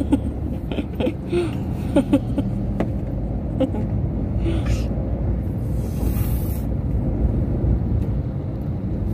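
Steady low road rumble inside a moving car's cabin, with scattered light clicks and taps.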